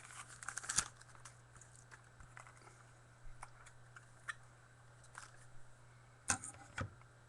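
Scattered light clicks and taps, about seven in all with gaps of up to a second or two, over a steady low hum.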